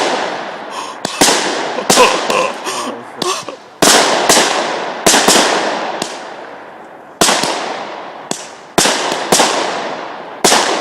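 Consumer firework battery firing: about a dozen sharp bangs at uneven intervals, each trailing off in a crackle over about a second.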